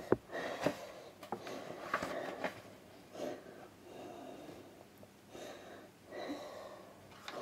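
Soft rustling and light taps from handling a book and its packaging, with a few sharp clicks and scrapes.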